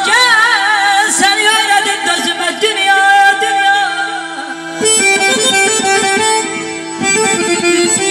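Live Azerbaijani wedding music: a woman sings with heavy vibrato over an accordion-like melody and a steady drone. About five seconds in, the singing gives way to instrumental playing with a rhythmic beat.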